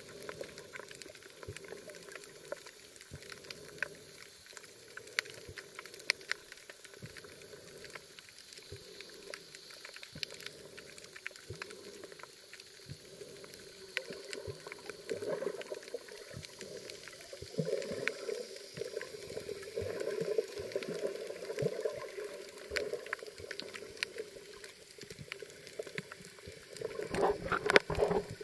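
Underwater sound picked up by a camera in a waterproof housing on a coral reef: a muffled watery rush with scattered sharp clicks, growing louder in the second half and loudest just before the end.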